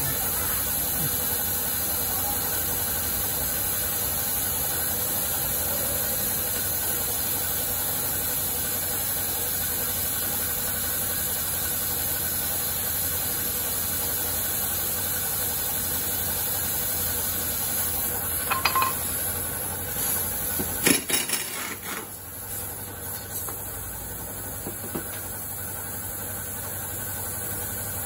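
Steady hiss and hum of workshop machinery. A few sharp metal clanks and knocks of tools on the scooter's clutch come a little past halfway.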